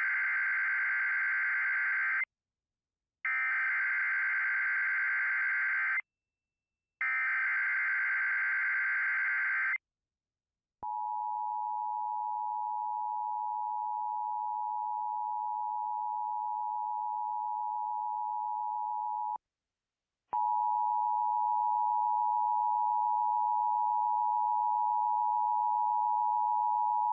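Emergency Alert System alert tones opening a tornado watch: three bursts of warbling digital SAME header data, each about two and a half seconds, from a Sage EAS encoder-decoder. Then the steady two-tone EAS attention signal sounds for about eight and a half seconds, breaks off for a second, and starts again.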